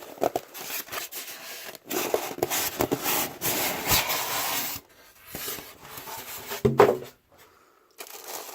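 Cardboard packaging and wrapped fan parts rubbing and scraping as they are handled in their box, with a louder bump near the end.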